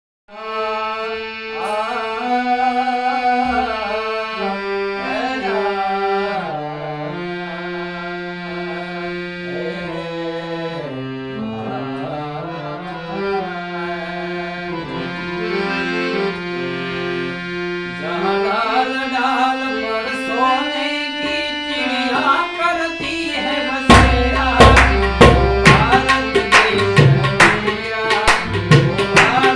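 Harmonium playing a slow melodic introduction over a held low drone note. About 24 seconds in, tabla strikes come in with a steady rhythm and become the loudest sound.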